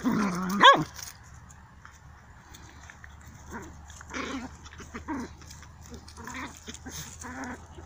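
Small dogs play-fighting: a loud yelp that rises sharply in pitch within the first second, then shorter, quieter growls every second or so.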